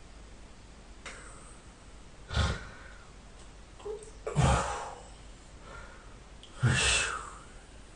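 A sleeping person breathing noisily: three short breaths, about two seconds apart, over a faint steady hum.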